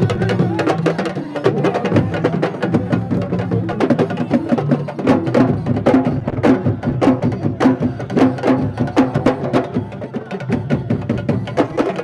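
Traditional Senegalese sabar drums played fast, with dense, sharp stick-and-hand strokes that sound like wood blocks.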